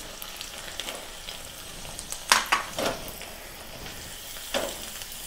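Soaked, peeled almonds frying in ghee in a small saucepan: a steady sizzle, with a few louder scrapes from stirring around two and a half seconds in and again near the end.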